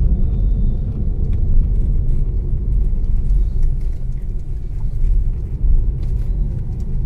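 Steady low road and tyre rumble inside the cabin of a Mahindra e-Verito electric sedan driving slowly. There is no humming from the differential, whose oil has just been replaced; the driver calls the car free of any sound.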